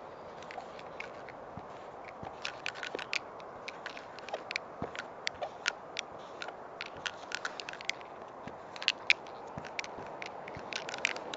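Wide 15 mm felt-tip paint marker (Molotow Speedflow) dragged and dabbed across a flat surface as a tag is written: a run of irregular short clicks and scrapes, loudest about nine seconds in, over a steady hiss.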